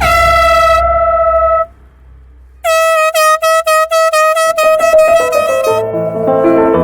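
Air horn blasted to wake a sleeper: one long, loud blast of about a second and a half, then after a short pause a rapid string of short blasts. Background music comes in near the end.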